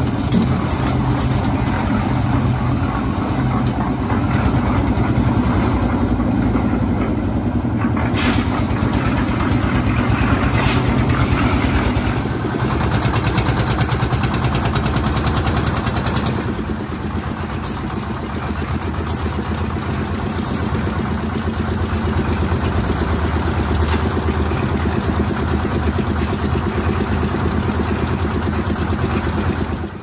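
Engines of a small concrete mixer and its lift machine running steadily as concrete is mixed, tipped into the hoist bucket and lifted. The sound shifts at about 12 and 16 seconds in and is a little quieter from about 17 seconds on.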